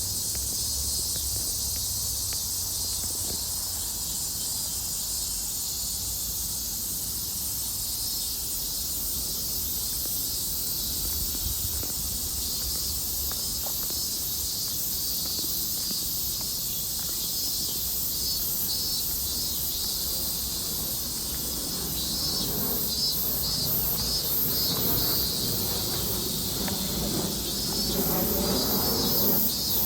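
Dense chorus of many cicadas, a steady high-pitched buzz pouring down from all sides. From about two-thirds of the way through, a louder pulsing call joins in over it. A low rumble runs underneath.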